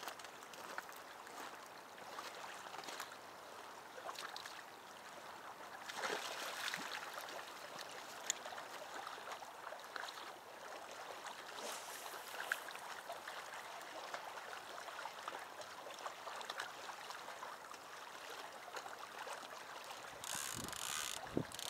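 Small waves lapping against a rocky lakeshore, a faint steady wash with a few light clicks. Near the end, a short gust of wind buffets the microphone.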